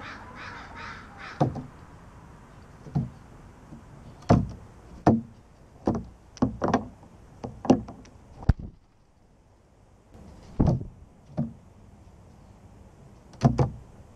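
Steller's jay pecking at and handling peanuts in the shell on a hollow plastic recycling-bin lid: about a dozen sharp knocks at irregular intervals, some in quick pairs.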